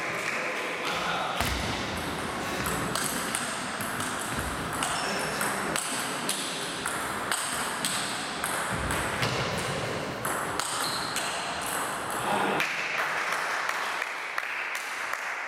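Table-tennis rally: the ball clicking sharply off the players' bats and the table in a quick, irregular back-and-forth.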